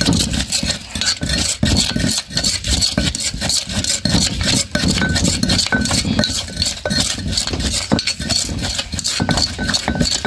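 Wooden pestle pounding in a stone mortar, a rapid, steady run of thuds several strokes a second, with a spoon in the bowl clinking against the mortar as the wet chili mixture is worked.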